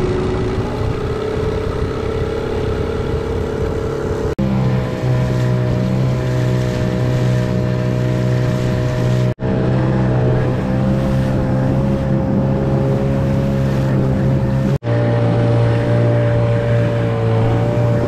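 Outboard motor running steadily at speed, driving an inflatable dinghy, with water and wind noise. Three abrupt breaks cut in, after each of which the engine's pitch is slightly different.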